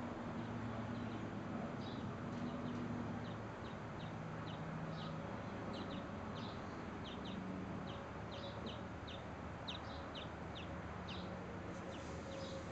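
A bird chirping over and over, short high falling chirps about one to two a second, over a low steady hum.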